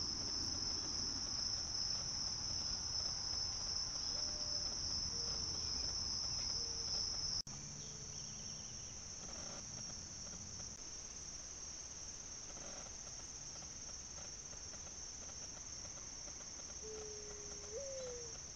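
Steady chorus of insects such as crickets, a constant high-pitched drone. About seven seconds in it drops a little in loudness and shifts slightly higher in pitch.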